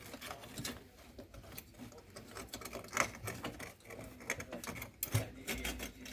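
Irregular light clicks, taps and scraping, as of small tools and metal parts being handled.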